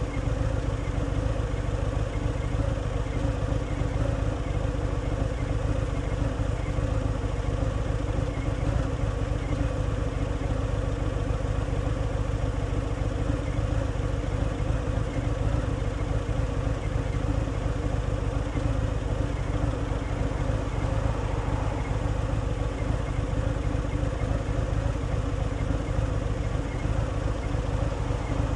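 Harley-Davidson Fat Boy's Milwaukee-Eight 114 V-twin running steadily through its stock exhaust while the motorcycle is ridden at an even speed.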